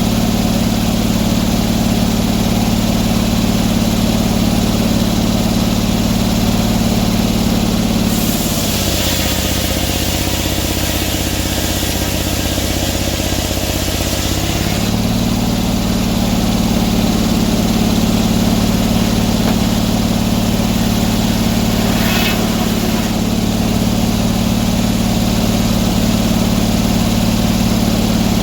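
Sawmill engine running steadily. For about six seconds, starting some eight seconds in, its note drops lower and a hiss rises over it, then the engine comes back to its earlier pitch.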